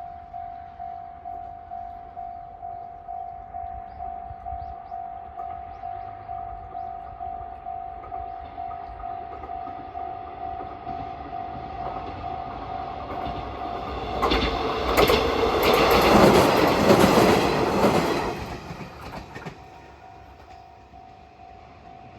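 Japanese level-crossing warning bell ringing a rapid, repeated electronic tone as a train approaches and passes, its wheels clattering over the rail joints loudest between about fourteen and nineteen seconds in. The bell keeps ringing after the train has gone and stops near the end.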